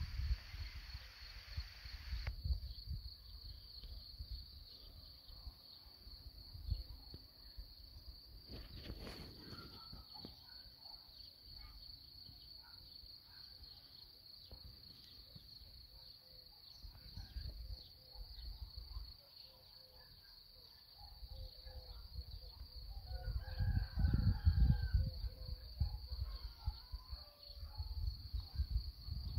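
Rural outdoor ambience: a steady high-pitched insect trill throughout, with wind buffeting the microphone in gusts, strongest late on. A rooster crows faintly a little over three-quarters of the way through.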